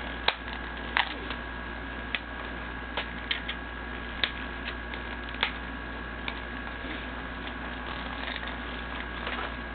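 Irregular sharp clicks and crackles of a shrink-wrapped plastic DVD case being handled and picked at while someone tries to get it open. Under them runs a steady faint hiss with a thin high hum.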